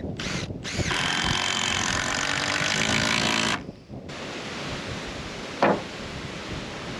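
Power drill running for about three seconds and then stopping abruptly, typical of driving a roofing screw through a corrugated roof sheet. Wind buffets the microphone, and a sharp knock comes near the end.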